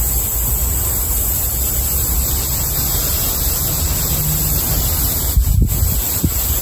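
Wind buffeting a headset microphone: a steady low rumble under a hiss, with a brief stronger gust about five and a half seconds in.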